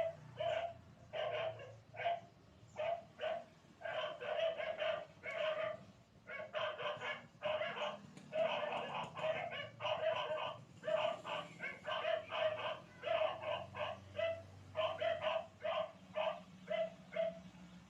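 A rapid series of short, repeated animal calls, each at much the same pitch, about two to three a second with only brief gaps.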